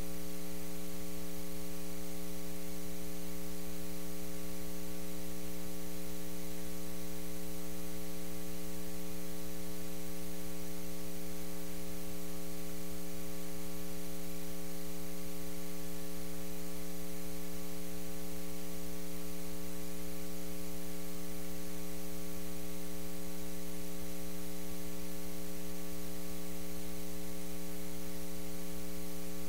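Steady electrical mains hum with a buzzy edge and a faint hiss, unchanging throughout, coming through the sound system's audio feed.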